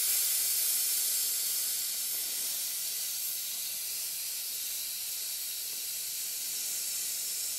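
Air hissing steadily out of the valve of a bicycle tyre that had been pumped to 4.5 bar, letting the tyre down; the hiss is a little stronger at first and then settles.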